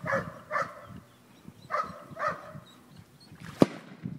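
Labrador retriever at heel giving short, high whining yips in pairs while watching a mark. One sharp crack sounds about three and a half seconds in.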